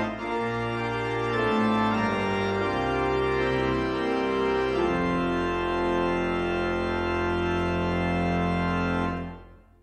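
Organ postlude closing the service: sustained chords changing every second or two, then a final chord held for about four seconds that fades out quickly near the end.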